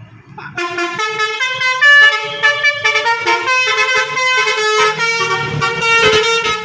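Tour bus's Basuri telolet horn playing a quick tune of many short notes, starting about half a second in.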